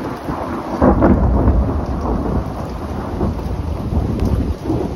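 Thunder rumbling, swelling sharply about a second in and rolling on, over steady rain.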